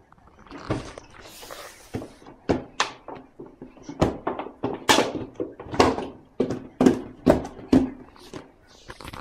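Large empty plastic water bottle being bumped, gripped and pushed around by a baby's hands: a quick, irregular string of sharp knocks and crackles of thin plastic.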